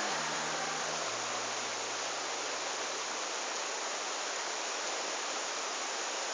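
Steady rush of white water: a waterfall and river rapids pouring over rocks.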